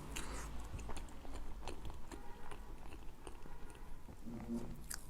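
Close-miked chewing of soft mille crêpe cake: a run of small, wet mouth clicks and smacks.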